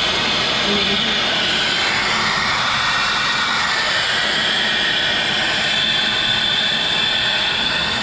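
Steady hiss of a high-pressure spray-gun jet played over a scooter's transmission cover and rear wheel.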